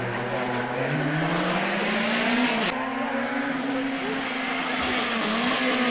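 Peugeot 208 rally car engine at full throttle, heard approaching unseen. The revs climb, break sharply about halfway through, then hold high with a short dip near the end.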